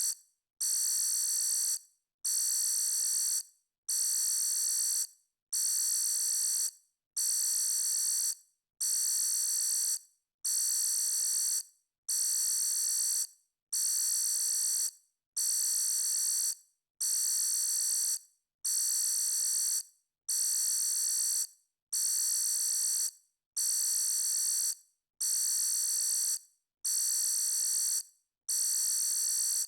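Electronic alarm beeping: a long, high-pitched tone repeated about every one and a half seconds, each beep lasting just over a second with a short silent gap between.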